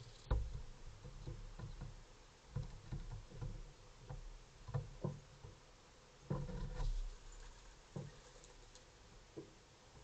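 Common pigeons moving about close to the microphone: scattered light taps and scuffs of feet and beaks at irregular intervals. The loudest thump comes about a quarter second in, as one flies in, with another cluster of knocks a little past six seconds.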